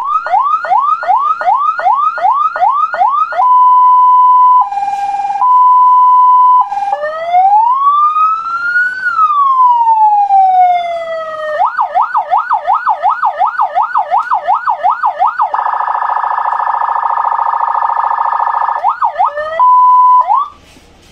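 Electronic 12 V siren through its loudspeaker, switched through its tones one after another: a fast yelp of about three sweeps a second, a steady tone broken by a lower buzz, a single slow wail rising and falling, a faster warble of about four sweeps a second, and a buzzing horn tone. A few short sweeps and a steady tone follow, then it cuts off just before the end.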